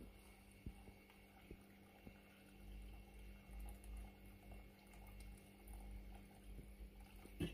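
Water poured in a steady stream into a stainless steel pot of fried meat and vegetables, faint, to make the stew's broth. There is a short knock near the end.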